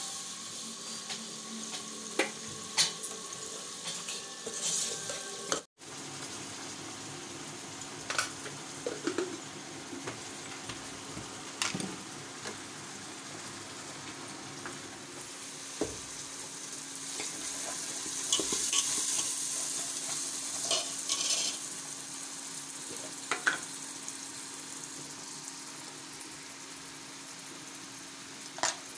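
Hot oil sizzling as stuffed pastries deep-fry in a wok, with sharp clinks of a metal spoon against the pan. The sound cuts out for an instant about six seconds in, then the sizzling goes on, growing louder for a few seconds past the middle.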